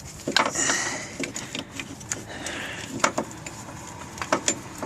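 Irregular metal clicks and knocks as a loosened water pump is worked down and out between engine parts.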